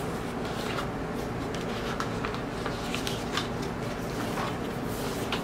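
Glossy paper pages of a large photo book rustling and crackling in short bursts as they are held and handled, over a steady low background hum.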